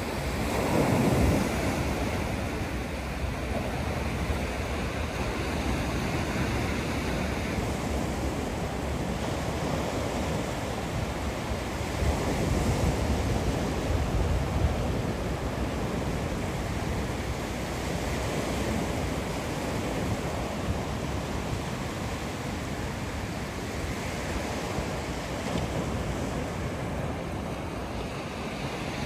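Sea surf washing onto the beach in a steady wash of noise, swelling a little about a second in and again in the middle. Wind rumbles on the microphone underneath.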